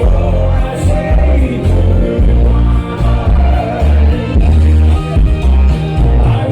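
Loud dance music with a heavy bass beat and a singing voice.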